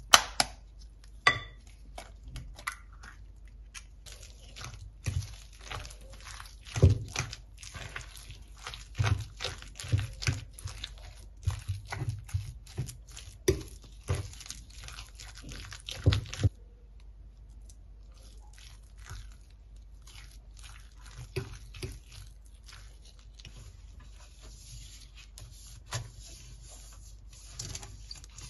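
A metal fork clinking and scraping against a ceramic baking dish while mashing and mixing boiled potato with egg and grated cheese, with many sharp taps. The tapping stops suddenly about halfway through, leaving occasional soft taps and a faint rubbing of a silicone pastry brush spreading oil on a metal baking pan near the end.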